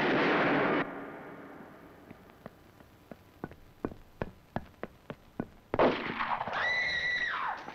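Loud crowd noise that cuts off suddenly just under a second in, then footsteps on a tiled floor, about three sharp steps a second. Near the end a loud, high, held tone sounds and slides down in pitch as it stops.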